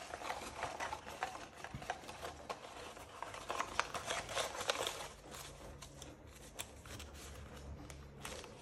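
Folded printer paper crackling and rustling as hands work a pleated herringbone origami form and crease the folds; a run of small sharp crinkles that thins out in the second half.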